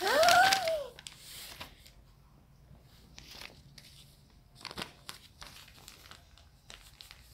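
A child's short vocal squeal rising and then falling in pitch at the start, followed by scattered light rustling and crinkling of paper cutouts being handled.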